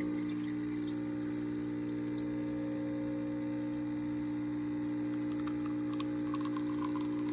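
DeLonghi fully automatic coffee machine's pump humming steadily as it pushes water through the brew unit, with a light patter of coffee spurting into the cup starting about five seconds in.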